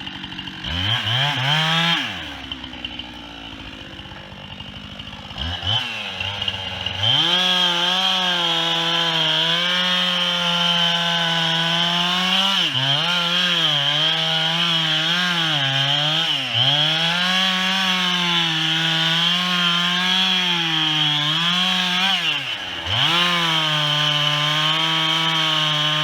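Chainsaw revved briefly twice, then held at full throttle cutting into a tree. Its pitch wavers and dips under the load of the cut, with a few short let-offs of the throttle.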